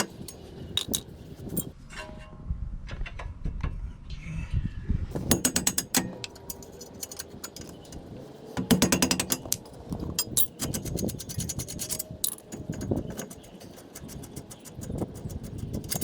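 Steel-backed brake pads and their metal clips being pried and worked out of a car's front caliper bracket: repeated metallic clicks, scrapes and clatter.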